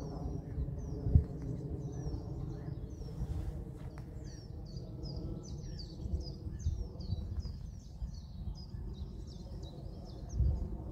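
Low, steady rumble of a distant airliner's jet engines as it descends high overhead, with a thump about a second in. Over it, small birds chirp a quick series of short falling notes, thickest from about four seconds in.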